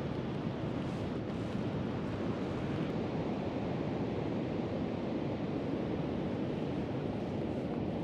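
Heavy ocean surf breaking on a sandy beach, with wind blowing across the microphone: a steady low wash of noise that does not let up.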